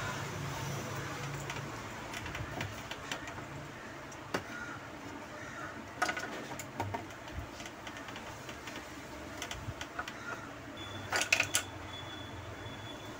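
Small scattered clicks and rustles of hands working thin copper wire strands around a relay leg on a circuit board, over a steady low hum, with a sharper cluster of clicks about eleven seconds in.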